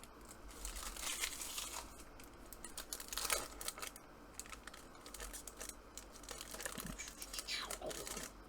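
Plastic wrapper of a football trading-card pack being torn open and crinkled, in irregular rustling bursts, as the cards are pulled out.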